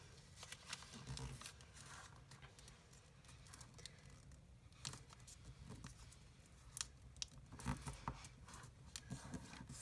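Faint rustling and crinkling of square origami paper being folded and creased by hand, with a few short sharp crackles scattered through it.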